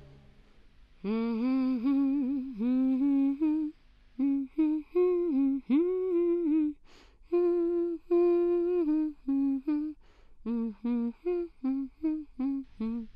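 A woman humming a tune alone, without accompaniment, starting about a second in; the notes turn short and clipped in the last few seconds.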